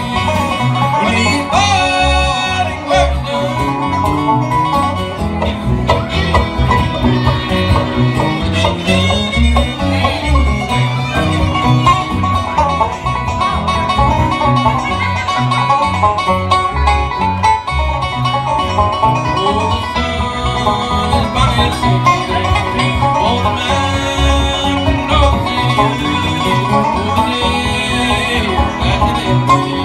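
Live bluegrass band playing an instrumental passage, with acoustic and electric guitars.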